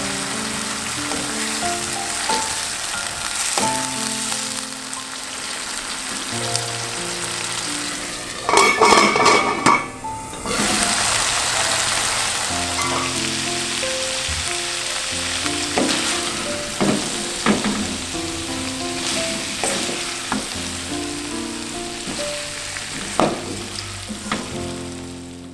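A pork and dried bamboo shoot stir-fry sizzling in a non-stick wok while a wooden spatula stirs and scrapes it, giving scattered clicks and one louder burst of stirring about nine seconds in. Soft background music plays underneath and fades out at the end.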